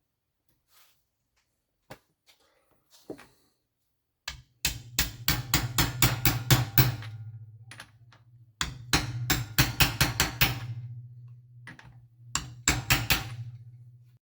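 Rapid sharp knocking in three runs, the first two about two seconds each and a shorter one near the end, at about six knocks a second over a low steady hum.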